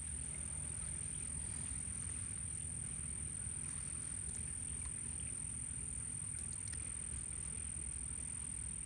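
Steady low outdoor rumble, like wind on the microphone, under a constant high-pitched insect drone, with a few faint ticks in the second half.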